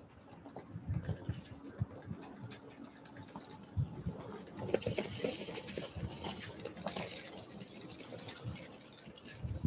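Small birds at a feeder: irregular pecking taps and clicks with soft low thumps, and a brief rustle about five seconds in.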